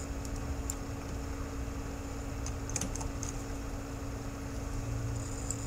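Faint computer keyboard keystrokes in two short clusters as text is deleted from a search box, over a steady low hum.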